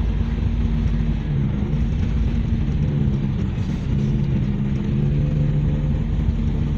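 Vehicle engine running steadily under a low rumble, heard from on board as the vehicle drives along a rough dirt road.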